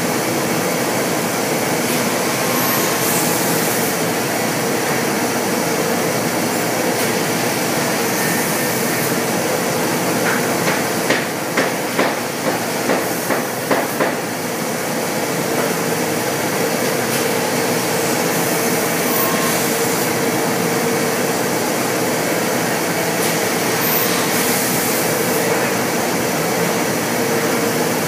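Pade CNC wood machining center running and cutting solid wood: a steady machine noise with a steady hum. About halfway through comes a quick run of about seven short, louder cuts.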